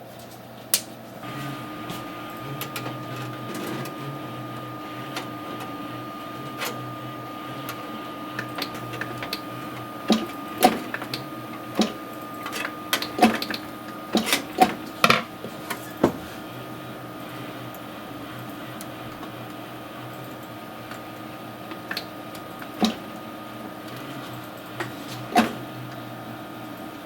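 A computer power supply unit humming, with a steady high whine over a lower buzz that starts about a second in. Scattered sharp clicks and knocks are heard, most of them between about ten and sixteen seconds in.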